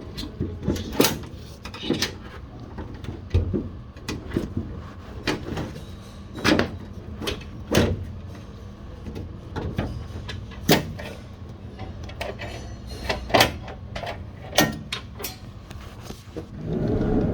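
Irregular clicks, taps and knocks of a sliding door's release cable and its metal and plastic fittings being handled and threaded through the inside of a van's sliding door, with a longer rustling scrape near the end.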